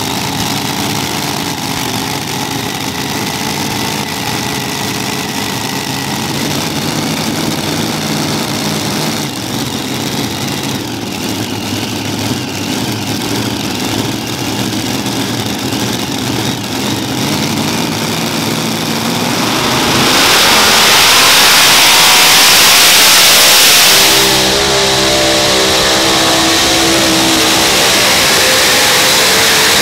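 Multi-engine modified pulling tractor's engines idling with a steady rumble. About twenty seconds in, they are opened up to full throttle and stay loud and steady at full power as the tractor launches into its pull.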